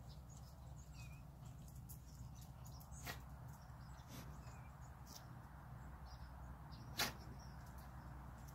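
Faint background noise with a steady low hum and a few sharp clicks, the loudest about seven seconds in.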